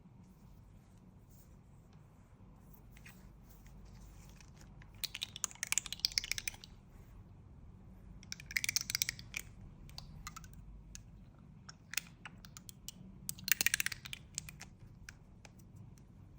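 Cosmetics packaging being handled, crinkling and crackling in three short bursts about four seconds apart, with a few light clicks between them.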